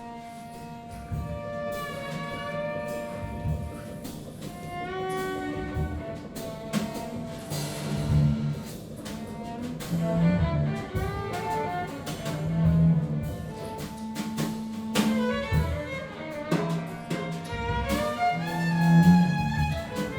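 Free-improvised ensemble music led by bowed strings, violin and cello, playing held and sliding notes, with scattered sharp percussive hits and low swells underneath.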